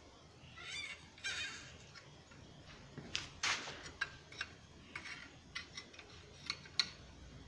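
Light metal clinks and scrapes of a steel rod used as a fid, worked through the red-hot loops of a steel knot clamped in a vise. Two short scraping sounds in the first second and a half, then a scatter of sharp clinks, the loudest about three and a half seconds in.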